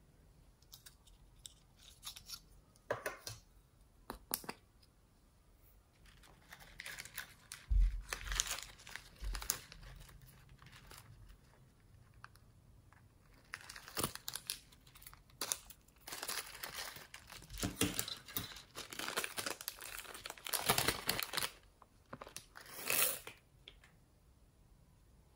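Hands handling small paper and plastic craft toys: irregular crinkling and tearing noises in bursts, with a few clicks and a couple of soft bumps about eight seconds in.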